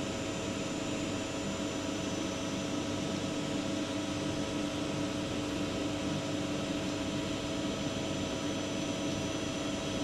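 CNC lathe running with its spindle turning: a steady mechanical hum with several constant whining tones.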